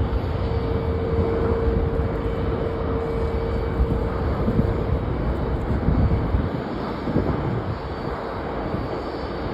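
Jet airliner engines running: a steady rush of noise with one held tone through it.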